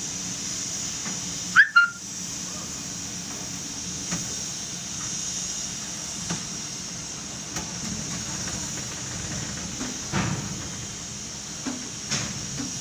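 Steady hiss and low hum of a 12-ton jib crane's machinery running, heard inside the operator's cab as the crane slews with a load. A short high squeal comes about one and a half seconds in, and a few light knocks follow later.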